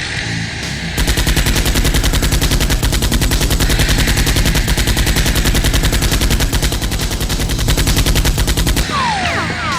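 Automatic gunfire sound effect: one fast, evenly paced burst of shots that starts about a second in and stops shortly before the end.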